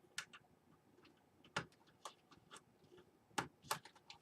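Faint, irregular small clicks and plastic taps of front-panel connector cables being handled and pushed onto a PC motherboard's header pins.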